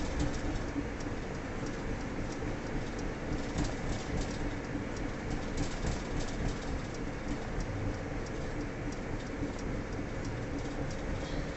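Steady road and engine noise of a truck cruising at about 40 mph on a highway, heard inside the cab, with frequent light ticks over the rumble.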